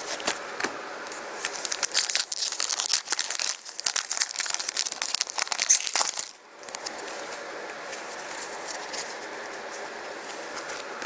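Crinkly foil wrapper of a hockey-card pack crackling as it is handled and torn open, a dense crackle lasting about four seconds that stops suddenly, leaving a steady low hum.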